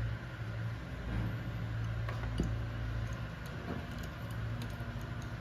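Steady low machine hum, with a few light clicks and taps over it.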